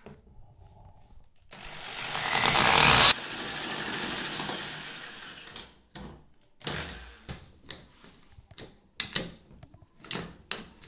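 Power drill with a hole saw cutting through a PVC wall panel: a loud cutting noise builds for about a second and a half, drops suddenly about three seconds in, then fades out over the next few seconds. After that comes a string of short sharp clicks and scrapes as material inside the hole is cut and scraped away with a blade.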